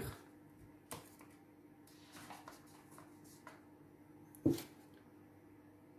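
Quiet handling of ingredient packets and jars on a kitchen counter: a few light clicks and one louder knock about four and a half seconds in, over a faint steady hum.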